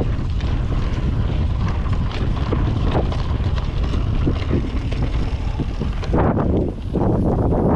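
Wind buffeting the microphone over tyre rumble and clattering rattles from a Yeti SB5 mountain bike riding a dirt trail, with a brief lull near the end.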